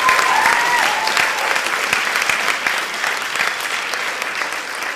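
Audience applauding, many hands clapping, with a brief whoop near the start; the clapping slowly thins out.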